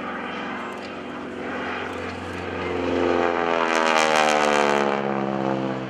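North American SNJ-5 Texan's nine-cylinder Pratt & Whitney R-1340 Wasp radial engine and propeller in a fly-by. It grows louder and harsher to a peak about four seconds in, then its pitch falls as the plane passes and moves away.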